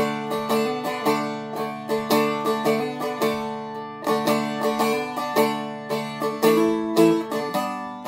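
Seagull Merlin M4 strummed with a pick in a steady rhythm, ringing chords from its few strings. The chord changes a couple of times near the end.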